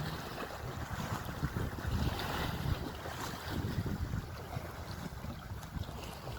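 Wind buffeting the microphone in uneven gusts, over a steady wash of sea waves on the shore.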